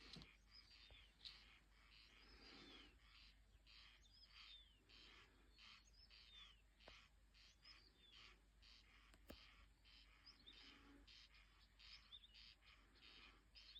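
Faint, dense chorus of birds calling, many short repeated calls overlapping, with quick downward chirps. This is the outdoor noise blamed for keeping people awake.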